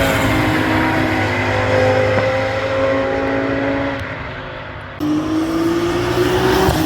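GT3 race car engines at speed: one car's engine note falls in pitch and fades as it passes. About five seconds in the sound switches abruptly to another car accelerating, its pitch rising.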